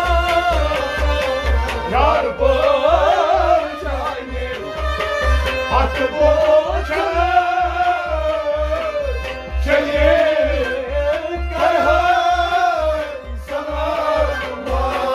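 Kashmiri folk song: two men's voices singing, accompanied by a harmonium and a hand drum keeping a steady beat.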